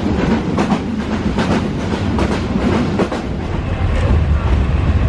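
Passenger train running, heard from inside the moving carriage: a steady low rumble with the wheels clacking over rail joints several times.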